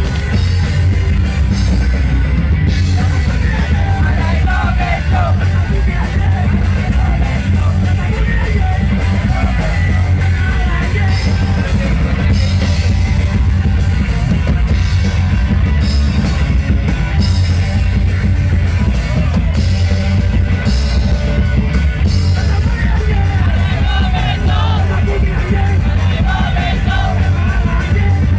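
Punk rock song: a loud band with drums, and shouted singing in places.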